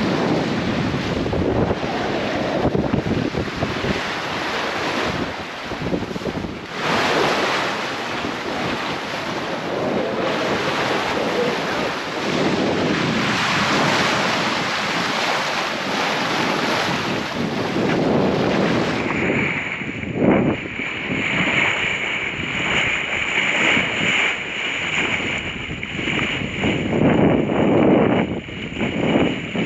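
Seawater rushing and splashing along the hull of a sailboat under way, with wind buffeting the microphone. The sound changes abruptly about two-thirds of the way through.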